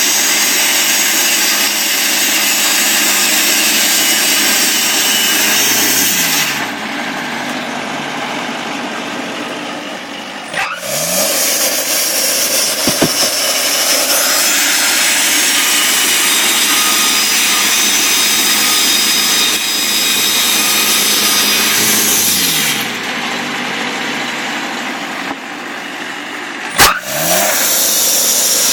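Portable sawmill running and sawing through a log: a loud, steady cutting noise that eases twice, about 6 and 23 seconds in, with a falling pitch as it slackens. Each lull ends with a sharp knock before the full cutting noise returns.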